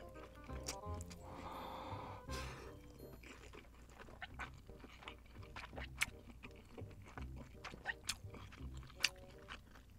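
Close-miked mouth sounds of someone eating fiery-hot noodles: a soft breathy exhale through pursed lips about a second and a half in, then many small sharp lip-smacking and chewing clicks.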